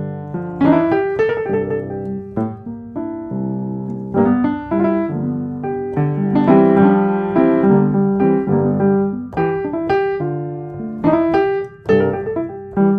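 Background piano music: a steady run of struck piano notes and chords.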